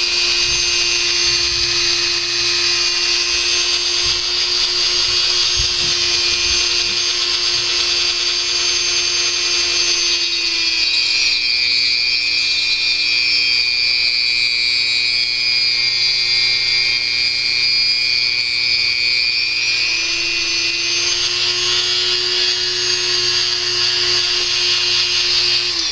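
Dremel rotary tool running at high speed with a cutting disc, grinding the resin pour stub off a model ejection seat. Its steady whine drops in pitch about eleven seconds in, as the disc is pressed into the resin, and rises back again about twenty seconds in.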